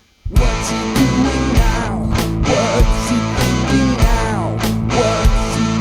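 Intro music: rock music with guitar and a steady drum beat, starting suddenly a quarter second in.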